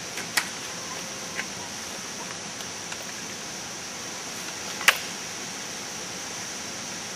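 Steady outdoor background hiss with a few short, sharp clicks, the loudest about five seconds in.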